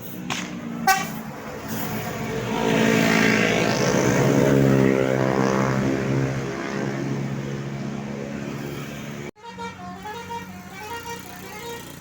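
A tour bus passes close and loud, its stacked tones sliding down in pitch as it goes by. After a sudden break near the end, a multi-tone 'telolet' bus horn plays a short stepping tune.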